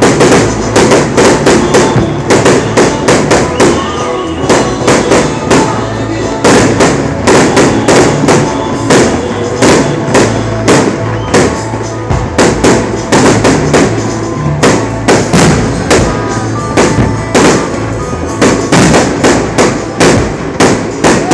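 Fireworks display: a rapid run of aerial shells bursting, about three or four bangs a second with no pause, over steadily playing music.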